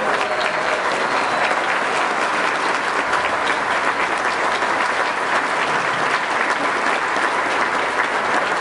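A large audience applauding: dense, steady hand clapping that holds throughout.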